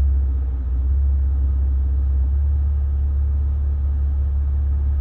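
2020 Maserati's engine idling in drive at a standstill: a steady low rumble heard from inside the cabin. The engine is one that overheats when left idling, and its temperature is climbing.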